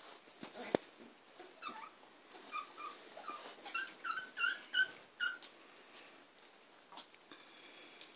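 Greater Swiss Mountain Dog puppies whimpering and yipping while play-fighting: a run of about seven short, high squeaks in the middle. A sharp knock comes near the start.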